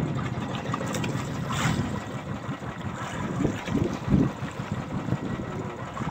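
Wind buffeting the microphone, with sea water splashing and lapping against a small outrigger fishing boat in choppy water.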